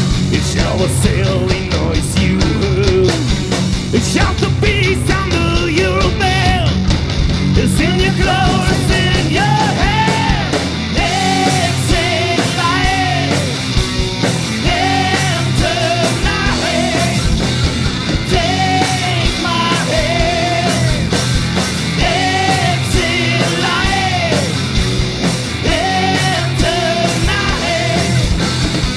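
Loud rock song with a full band on drums and guitar, and a singer coming in about eight seconds in with repeated sung and shouted lines.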